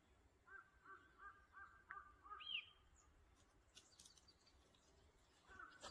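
Faint bird calls: a quick run of about six short notes, then a single higher, arched note, with a few light scuffs and clicks after.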